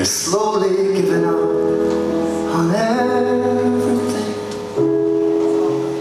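Live performance: a man singing long, held notes, sliding up into a new note twice, over sustained instrumental chords.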